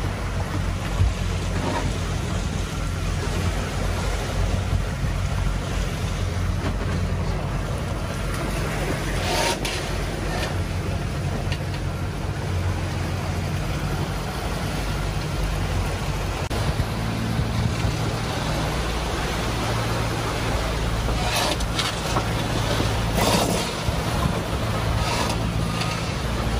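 Lagoon 410 sailing catamaran under engine: a steady low engine drone, with water rushing past the hulls and a few brief louder swishes.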